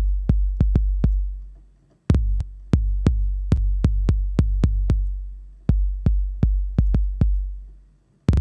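TR-808-style bass drum from software emulations, first the Roland Cloud TR-808 and then, from about two seconds in, D16 Group's Nepheton. It is triggered in quick repeated hits, each a short click with a long, deep sub-bass boom. Each run rings out and fades to silence before the next run starts.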